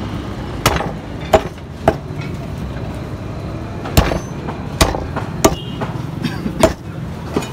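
Butcher's cleaver chopping beef on a wooden chopping block: about eight sharp chops, three in quick succession, a pause of about two seconds, then the rest at uneven intervals.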